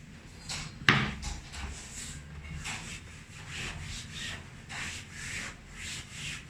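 Repeated rubbing strokes, roughly two a second, with one sharp click about a second in.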